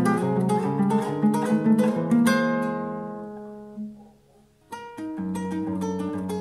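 Classical guitar played fingerstyle: quick plucked notes, then a chord a little over two seconds in left to ring and fade almost to silence, before the plucking resumes near the two-thirds mark.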